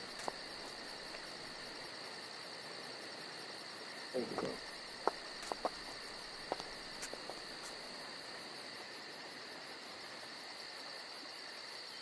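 Crickets chirping steadily in the night air, with a few faint clicks and a short, low sound about four seconds in.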